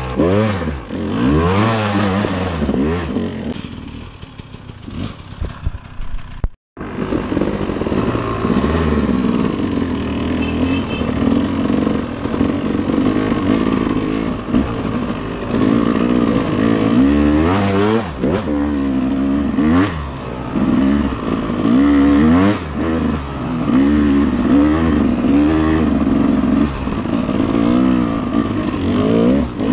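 Dirt bike engine revving up and down repeatedly as it is ridden. It drops quieter for a few seconds in the first quarter, the sound cuts out completely for a moment about seven seconds in, and the revving then continues.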